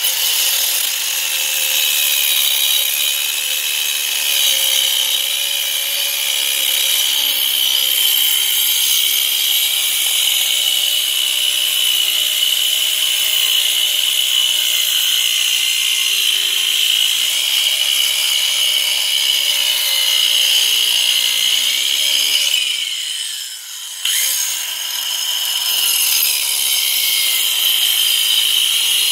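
Sturm AG9020CL cordless angle grinder with a diamond cutting disc, running off a 12 V battery and cutting into brick: a steady high motor whine with grinding, its pitch sagging and wavering as the disc bites. About 23 seconds in it winds down, then starts up again abruptly a second later.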